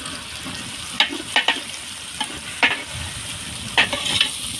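Onion, chilli and freshly added garlic sizzling in hot oil in a pan, with a steady frying hiss. A spoon stirring knocks against the pan about five times.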